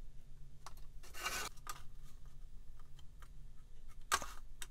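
Plastic model parts being handled and pressed together by hand: scattered small clicks, with two short scraping rubs, about a second in and near the end.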